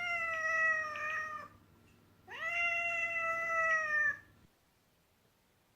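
A domestic cat meowing twice, two long drawn-out meows a little under a second apart, each sliding slightly down in pitch.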